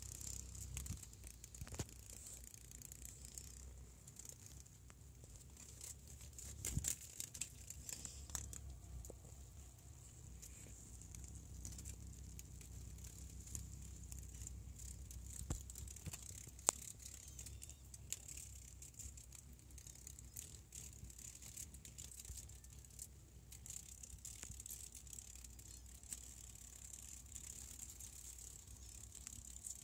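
Faint handling noise: scattered small clicks and rustles, one sharper click about two-thirds of the way through, over a low steady hum and a faint high hiss.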